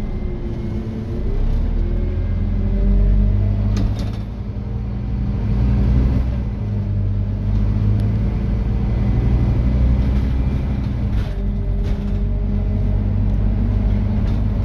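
Scania N230UD OmniDekka double-decker bus's five-cylinder diesel engine running under way, heard from inside the upper deck: a steady low drone whose note rises and falls as the bus pulls away and eases off. A few brief sharp clicks are heard from the bus.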